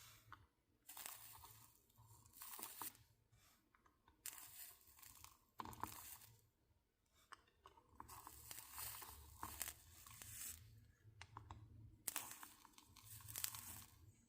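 Faint crackling sizzle of flux and molten solder as a soldering iron is drawn along stained-glass solder lines, coming in bursts of one to three seconds with short pauses between passes.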